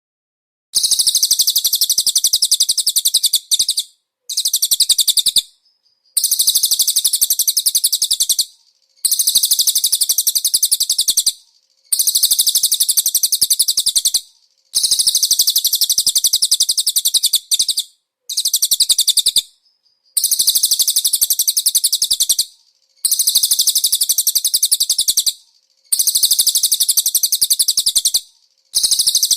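Recorded konin songbird song with cililin fills: a loud, very rapid, high-pitched trill in repeated bouts of about two to three seconds, broken by short pauses.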